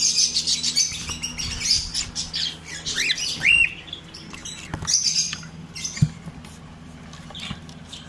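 Aviary cockatiels and budgerigars squawking and chirping, many short calls overlapping in the first three and a half seconds, then only a few calls. A single sharp knock about six seconds in.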